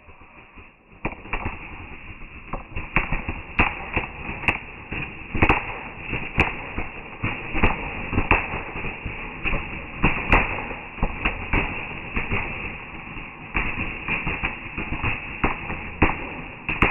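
Fireworks going off in a rapid, irregular string of sharp bangs and cracks, starting about a second in and running on.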